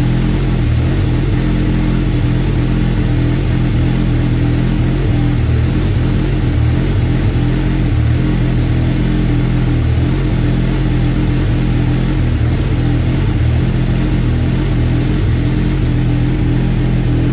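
Kawasaki Ninja ZX-6R's inline-four engine idling steadily, freshly rebuilt with its camshafts refitted.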